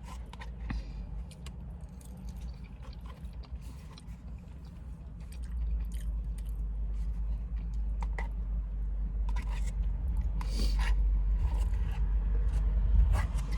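Close-up eating sounds: chewing poutine, with short clicks and scrapes of a fork in a takeout container. Under them is a steady low rumble that grows louder about halfway through.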